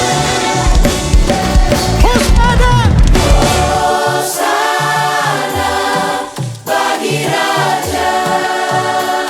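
Gospel worship song: a mixed choir sings sustained harmonies over a full band with drums and bass guitar. About four seconds in the drums and heavy bass drop away, leaving the choir over short, spaced low notes.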